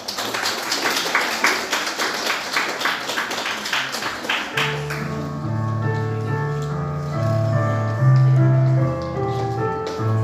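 Hand clapping, about three claps a second, which stops about four and a half seconds in. An instrumental backing track then begins, with slow sustained keyboard-like notes over a bass line.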